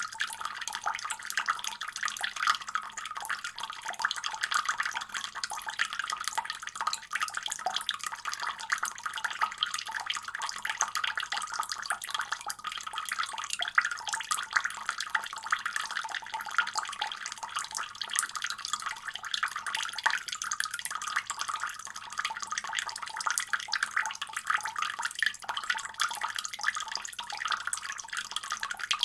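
Water running steadily from a faucet: an unbroken, bright splashing hiss.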